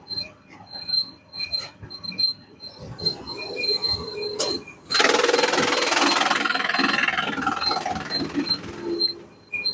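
Sawmill machinery: short high squeaks and knocks, then about five seconds in a saw cutting through wood starts abruptly with a loud, rough noise that tapers off near the end.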